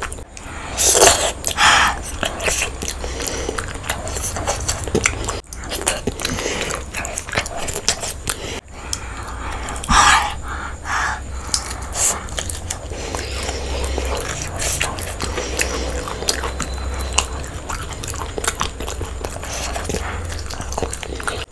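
A person eating close to the microphone: irregular biting and chewing of a goat head curry and egg biryani meal, with a few louder crunchy bites about a second in and again about ten seconds in. A steady low hum runs underneath.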